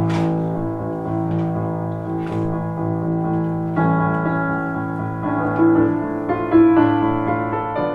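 Piano playing slow, held chords; a fuller chord comes in about four seconds in, and a few higher melody notes follow.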